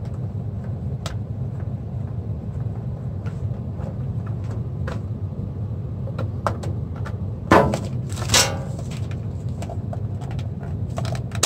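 Scattered small clicks and taps of a screwdriver working screws out of a plastic clock-radio housing and of the case being handled. About two-thirds of the way through come two louder knocks and rustles. A steady low hum sits underneath throughout.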